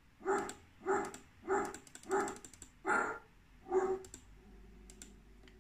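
Recorded dog-bark sound effect played by an ESP32's MP3 player module, fired over and over: six short barks about two-thirds of a second apart. After the last bark, around four seconds in, only a faint low hum is left.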